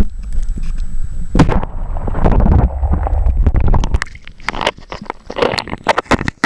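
Wind buffeting the microphone with a heavy low rumble, giving way about two-thirds of the way through to a run of sharp, irregular knocks and pops.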